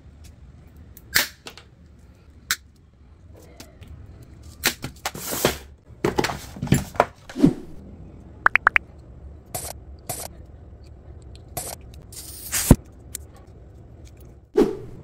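Hand-tool and handling noises: a sharp snip as diagonal cutters go through steel wire rope about a second in, then scattered clicks, taps and plastic rustling as heat-shrink tubing is taken from a plastic organizer box and slid onto the cable end.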